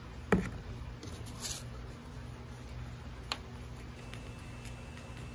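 A plastic pail set down on a slatted patio table with one knock, followed by a couple of light clicks from handling, over a steady low hum.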